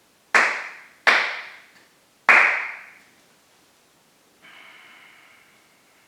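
Three sharp hand claps, the second and third further apart, each with a ringing echo: the ritual claps (kashiwade) of Shinto prayer. About four seconds in, a fainter steady ringing tone runs for a second and a half.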